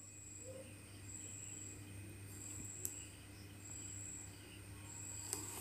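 Faint cricket chirping: a short high trill repeating about once a second over a steady low hum.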